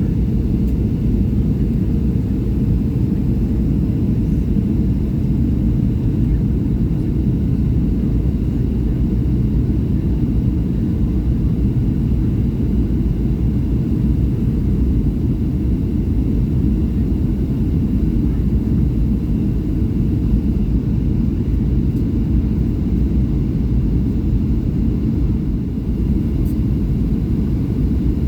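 Steady low rumble inside the cabin of a Boeing 757-200 in flight, from its Rolls-Royce RB211 engines and the airflow over the fuselage.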